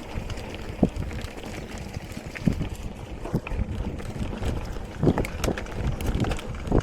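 Wind buffeting the microphone over a low rumble, with scattered knocks and rattles from a mountain bike riding over rough trail.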